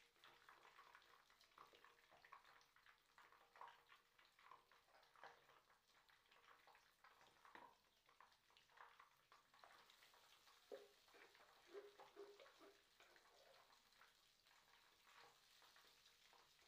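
Faint crackling and popping of bean-batter fritters (akara) frying in hot vegetable oil, a steady scatter of small irregular pops over a soft hiss.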